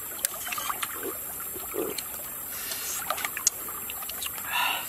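Shallow stream trickling steadily, with small sharp clicks of metal spoons against a bowl and an eggshell as two people eat.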